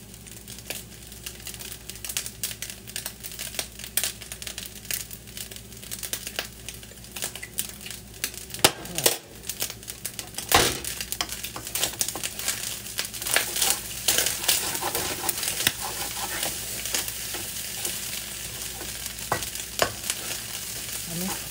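Crab fried rice sizzling in a non-stick wok while a wooden spatula and a metal spoon stir and scrape it, with many quick clicks and knocks of the utensils against the pan. The sizzle gets louder about halfway through.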